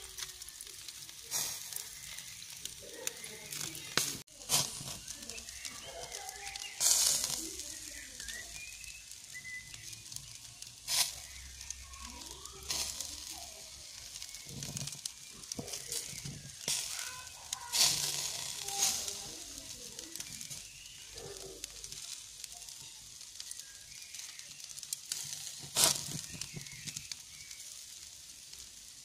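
Skewered meat sizzling in a wire grill basket over glowing charcoal, with a steady hiss and sharp crackles and pops every few seconds.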